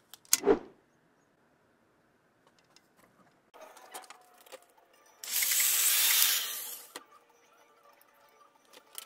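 Metal workshop noises at a bench vise: a sharp knock about half a second in, scattered small metallic clicks, then a harsh, even noise lasting about two seconds around the middle.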